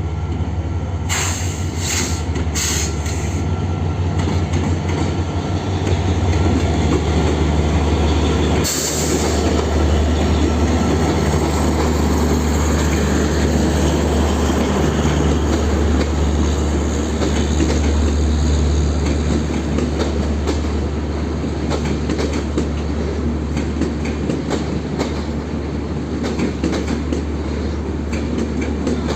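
EMD diesel-electric locomotive hauling a passenger train past: a steady low engine drone over a rumble of wheels on rail. Later the drone eases and the wheels click and clatter over rail joints as the coaches go by.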